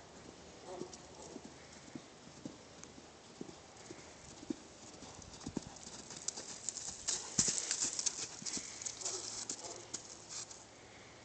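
Horses' hooves striking the ground: scattered single hoofbeats, thickening about six seconds in into a quick, louder flurry of hoofbeats that dies down near the end.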